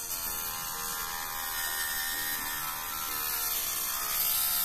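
Small DC motor spinning a spindle hub with a notched, sandpaper-like edge, whining steadily as it grinds into a wooden ice-cream stick. The pitch dips briefly about three and a half seconds in.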